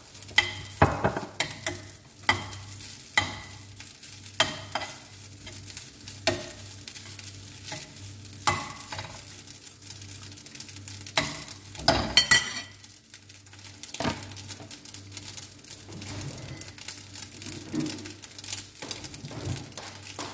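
Cooked rice being reheated in a non-stick frying pan: a light sizzle with a metal spoon stirring, scraping and knocking against the pan. The knocks come about once a second for the first several seconds, with a louder burst of scraping about twelve seconds in, and then the sizzle goes on more quietly.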